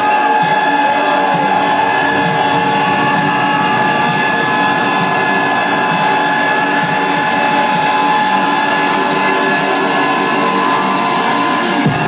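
Loud electronic dance music in a beatless build: a steady high synth whine held over dense layered tones, recorded in distortion on a phone. Low thumps come back right at the end.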